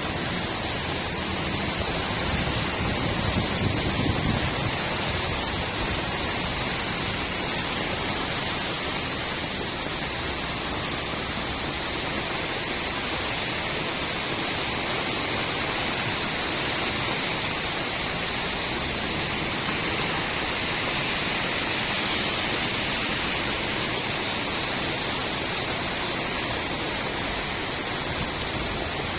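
Steady rain falling on a street, an even, continuous hiss, with a low rumble in the first few seconds.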